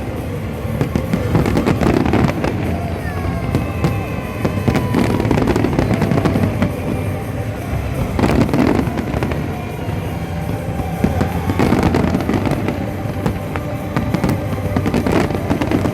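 A fireworks display with shells bursting repeatedly, sharp bangs every few seconds over a continuous rumble and crackle, and music playing alongside.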